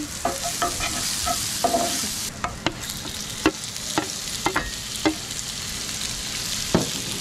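Shrimp sizzling steadily in butter and shallot in a skillet as they are scraped off a plate with a wooden spoon, with a dozen or so short knocks of the spoon against plate and pan.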